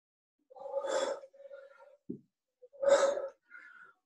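Hard breaths of exertion during kettlebell swings: two sharp, breathy exhalations about two seconds apart.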